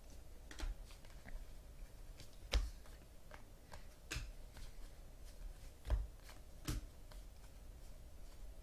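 Trading cards being handled on a table: soft sliding and shuffling of cards, with about five sharp taps spread across the stretch.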